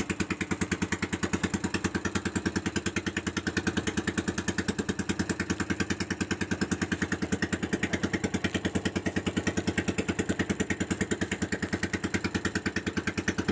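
Small boat engine running steadily at an even speed, a fast regular putter.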